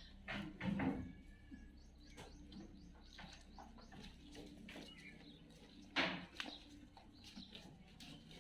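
Birds chirping, with scattered clicks and knocks and two louder noises, one about a second in and one about six seconds in.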